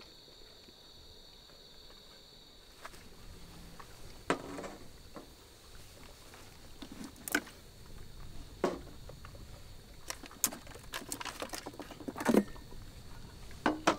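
Cicadas buzzing steadily, cutting off abruptly about three seconds in; after that, scattered clicks, knocks and clinks of objects being handled, a few of them ringing briefly.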